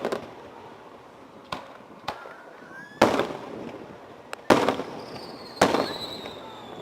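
Fireworks display: aerial shells bursting, with three loud booms about a second and a half apart and a few smaller pops before them, each followed by a trailing echo. A high whistle falls in pitch near the end.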